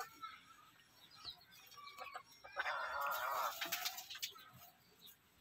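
A chicken gives one rough, rapidly pulsing cluck lasting about a second, about two and a half seconds in. Otherwise there are only a few faint clicks.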